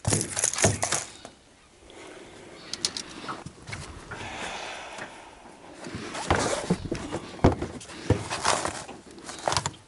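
A freshly landed golden perch being handled on a brag mat on the boat floor: irregular slaps, knocks and rustling as the fish flaps and is unhooked with pliers, the loudest knocks at the start and in the last few seconds.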